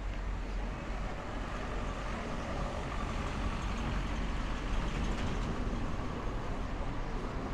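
Busy city street noise: steady road traffic with engines running, heaviest in the low end.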